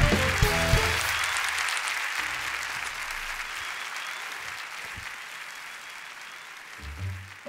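Studio audience applauding, the clapping fading slowly away. The closing notes of a theme tune end about a second in.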